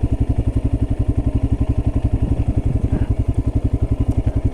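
Royal Enfield Himalayan's single-cylinder engine idling with a quick, even pulse, stopping abruptly at the very end.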